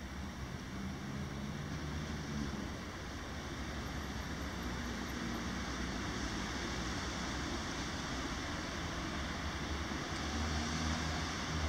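Steady urban background: a low rumble of road traffic under a constant hiss, swelling a little twice as vehicles pass.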